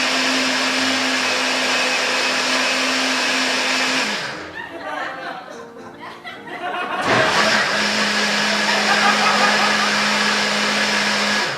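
Electric blender running in two bursts, blending a drink mixture. It stops about four seconds in, starts again about three seconds later and runs until near the end, the second time with a slightly lower motor pitch.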